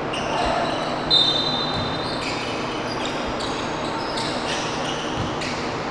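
Basketball game on a hardwood court: a ball bouncing and sneakers squeaking on the floor, with the loudest squeak about a second in.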